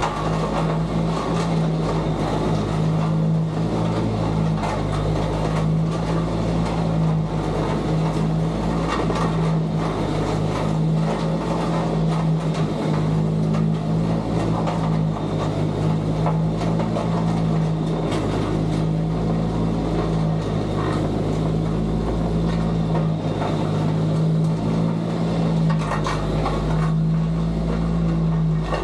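Engine of heavy equipment running at a steady speed under load, a constant drone that holds one pitch throughout, with a continuous rough rattling and scraping noise over it.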